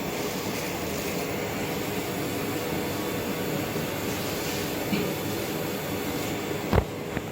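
Steady fan-like machine noise, with one sharp knock near the end.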